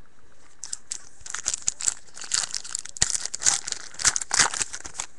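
A hockey card pack's wrapper being torn open and crinkled by hand, a run of irregular crackling that starts about a second in and stops just before the end.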